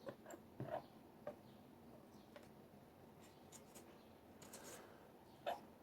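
Faint scattered clicks and light taps of small padlock parts being handled during disassembly, with a short scraping rustle about four and a half seconds in and a sharper click near the end.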